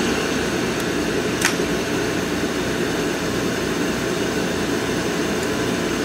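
HTP Munchkin boiler's combustion blower running steadily during an ignition trial, with the gas valve open but no flame lighting: a failed ignition attempt that the boiler reports as an F09 flame fault. A single sharp click about a second and a half in.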